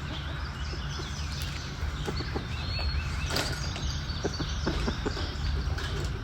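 Birds chirping in many short, scattered calls over a steady low background hum.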